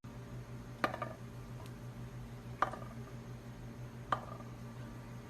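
Three sharp knocks or clinks of hard objects, about a second and a half apart, over a steady low hum.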